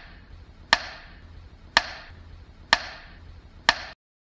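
Logo intro sound effect: four heavy strikes about a second apart, each ringing out briefly, cutting off suddenly shortly before the end.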